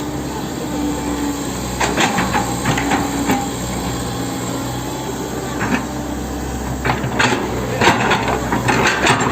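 Hitachi 110M excavator's diesel engine running steadily, with bursts of knocking and clanking about two seconds in and again from about six seconds on, as it works the fill.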